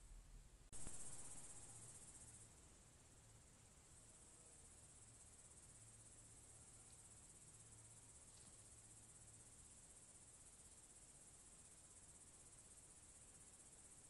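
Faint, steady, high-pitched chirring of crickets, starting abruptly with a short click about a second in.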